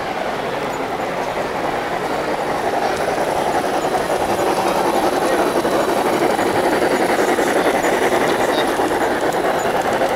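Large-scale model train rolling on the track: a steady, fast clatter of metal wheels on the rails, growing louder about three seconds in.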